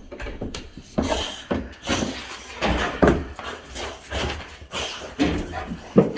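Two boxer dogs moving about a kennel pen by its wire-mesh gate: irregular knocks, bumps and rattles, mixed with brief dog noises.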